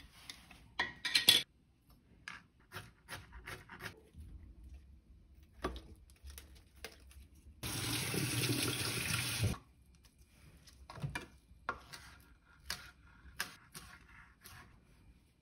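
Light clinks and taps of a glass jar and knife on a plastic cutting board, then a steady rush of a kitchen tap running for about two seconds, followed by a few separate knife strikes chopping herbs on the cutting board.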